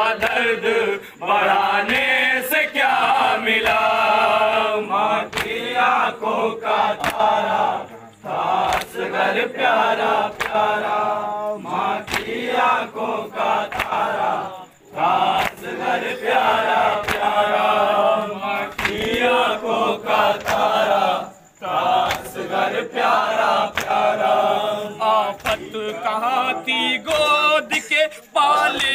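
Men chanting a noha in chorus around an amplified lead singer. Their voices are crossed by a steady rhythm of sharp slaps, the matam of hands striking chests in time with the lament.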